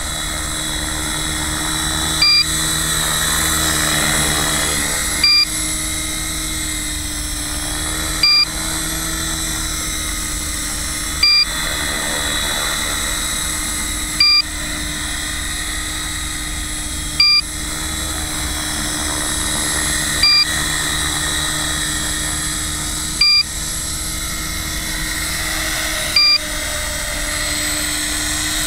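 Electric T-REX 450 PRO radio-controlled helicopter in flight: a steady whine from the motor and rotors. A short, loud beep sounds about every three seconds over it.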